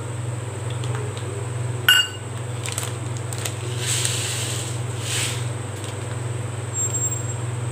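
Cooking oil heating in a clay pot on the stove, with a steady low hum throughout and faint hissing around four to five seconds in. A short clink rings out about two seconds in.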